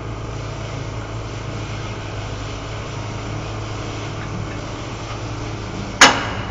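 An engine running steadily at a constant speed, with one sharp, loud knock near the end.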